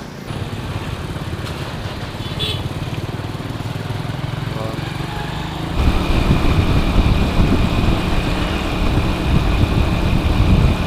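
Small motorcycle engine running in traffic. It gets louder and rougher about six seconds in, when a steady high whine also starts.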